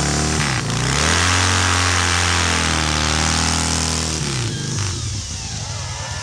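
Chainsaw powered by a Harley-Davidson V-twin motorcycle engine, running at full throttle and cutting through a big log. The engine note dips about half a second in, holds steady under load, then falls away about four seconds in.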